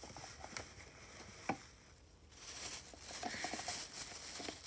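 Plastic wrap crinkling and rustling as a wrapped plastic container is taken out of a cardboard box, with a few light clicks. The crinkling gets louder about halfway through.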